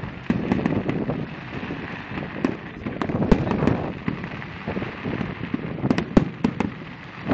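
Fireworks display: a rapid, irregular series of bangs and crackles, thickest about three seconds in and again around six seconds in.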